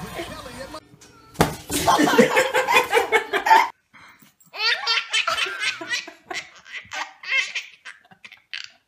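A baby and a man laughing hard, in two long spells of laughter with a short pause between.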